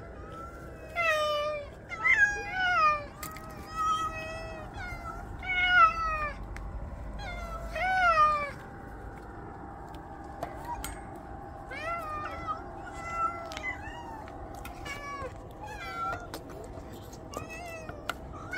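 Several hungry stray cats meowing over and over, begging for the wet food in the can. The calls are loudest and most drawn-out in the first half, then come quicker and quieter, with a few short clicks in between.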